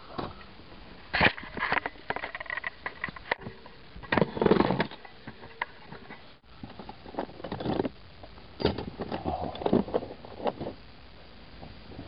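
Hands rummaging through tools and small hardware in a plastic storage bin: irregular bursts of rattling, clinking and rustling, cut off abruptly a few times.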